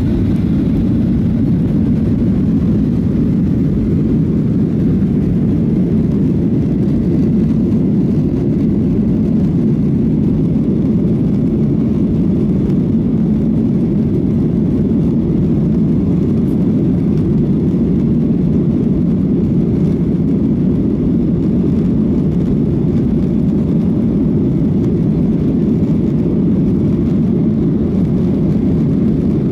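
Steady low rumble of a Boeing 737-800 with its CFM56-7B turbofan engines running, even in level and pitch throughout.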